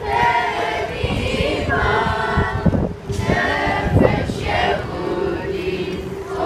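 A group of voices singing together, choir-like.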